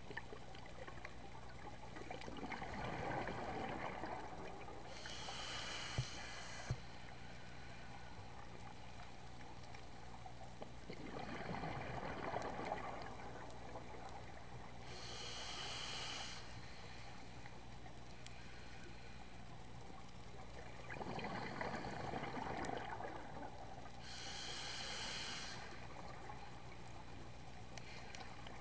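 Scuba diver breathing through a regulator underwater: three slow breaths about ten seconds apart, each a burst of bubbling exhale followed by a short high hiss of inhale.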